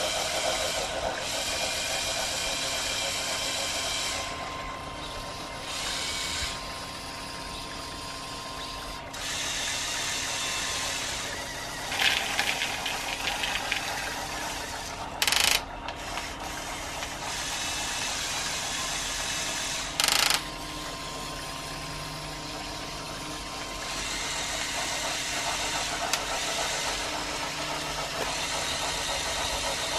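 Electric motors and plastic gearing of a motorised LEGO Technic 8043 excavator whirring as the boom, arm and bucket are driven by their linear actuators, the sound shifting every few seconds as different functions start and stop. There is a rattle of clicks about twelve seconds in, and two short loud noises about five seconds apart around the middle.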